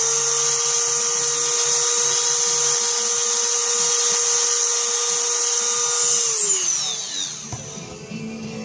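Small handheld power tool running at a steady high whine while taking the burrs off a drilled-out die-cast car rivet post, then winding down quickly about three-quarters of the way through.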